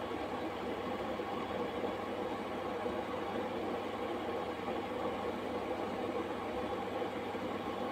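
Pot of water heating at the boil on an electric cooktop: a steady rumbling hiss over a low, even hum.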